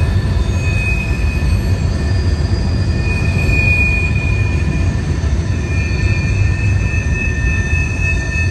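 Train rolling by with a steady low rumble of wheels on rail. Its wheel flanges squeal in thin, high, ringing tones that swell and fade several times, the grinding of wheels through a tight curve.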